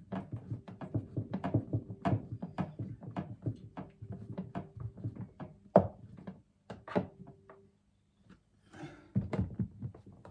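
Quick irregular clicks and light knocks of screws being worked back into the panel of a fridge freezer, several a second, with a faint steady hum underneath for most of the first seven seconds. A brief lull follows, then a few more knocks near the end.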